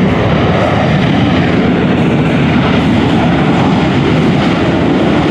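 F/A-18E/F Super Hornet's twin General Electric F414 turbofans at takeoff power as the jet rolls down the runway and lifts off: a loud, steady rumbling roar.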